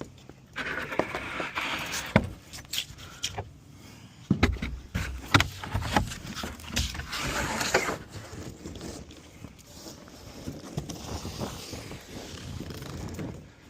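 Footsteps with scattered knocks, thumps and scraping as items are picked up and moved, busiest in the first half.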